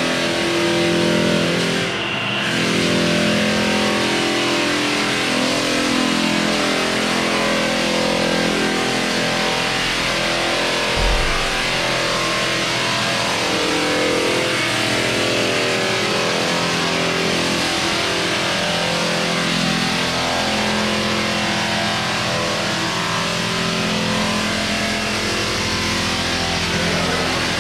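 Electric floor sanding machine running steadily on a hardwood floor, a motor drone over a wide hiss, with one low thump about eleven seconds in.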